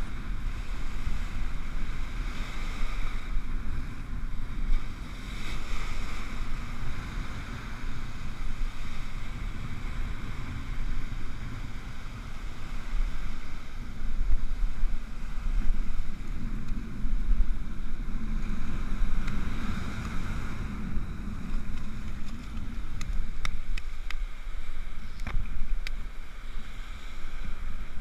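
Strong wind buffeting the microphone in a heavy low rumble, over surf washing up the beach. A few sharp clicks near the end.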